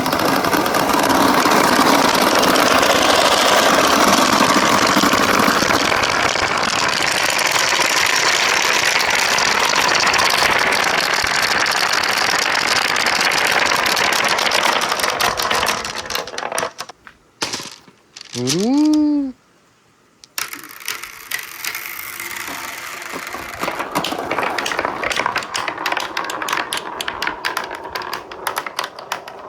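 Many marbles rolling and clattering down stainless steel ramps in a dense, continuous rattle that thins out and stops about 16 seconds in. After a short pause, a lighter, sparser clicking of fewer marbles rolling takes over.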